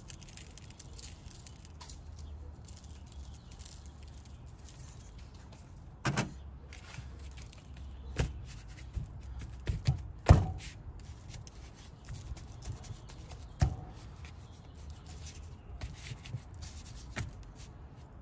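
Several knocks and thuds over a light, irregular crackling; the loudest knock comes about ten seconds in.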